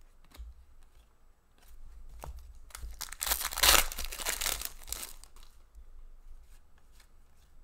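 Foil pack of hockey trading cards torn open by hand, the wrapper crinkling: a loud tearing rush about three seconds in that lasts about two seconds, after a few light clicks.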